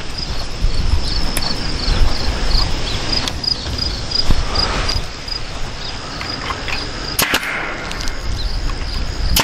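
Crickets chirping steadily, a short high chirp about twice a second, with a few sharp clicks and knocks, the clearest about seven seconds in.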